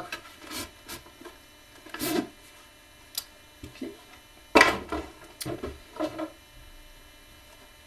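A cardboard box and a carded action figure in a plastic blister pack being handled and pulled out: a string of short rustles, scrapes and knocks, the loudest about four and a half seconds in.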